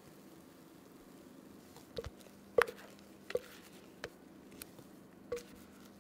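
Thick chocolate cake batter poured and scraped from a mixing bowl onto whipped egg whites in a glass bowl: about six short, soft plops and light knocks, the sharpest about two and a half seconds in, over a faint steady hum.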